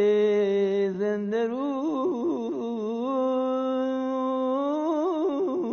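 A man singing Persian classical avaz unaccompanied, in the Isfahan vocal style: a long held note, then quick warbling tahrir ornaments about two seconds in, another long held note, and more warbling near the end.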